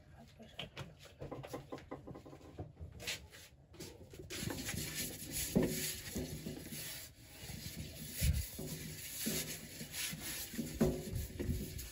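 A bare hand rubbing cooking oil around the inside of a non-stick pot, making soft, uneven rubbing and swishing strokes. It is sparse and faint at first, and the rubbing becomes steady and a little louder about four seconds in.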